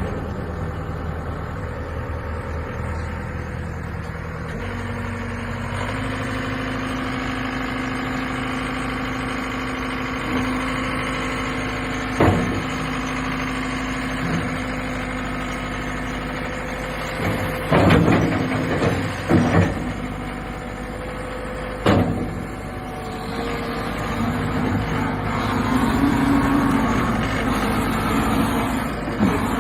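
The 2017 John Deere 323E compact track loader's turbocharged four-cylinder Yanmar diesel running, its speed stepping up about five seconds in and holding there. A few sharp knocks and clunks from the machine come in the second half.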